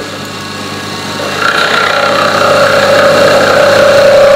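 Jet benchtop metal lathe with a CNC conversion running: a steady motor whine that grows louder about a second and a half in, then holds.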